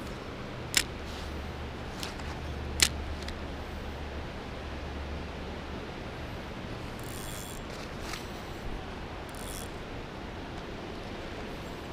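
Spinning rod and reel being handled over a steady outdoor hiss: two sharp clicks about one and three seconds in, and a few brief rustles later. A low rumble sits under the first half.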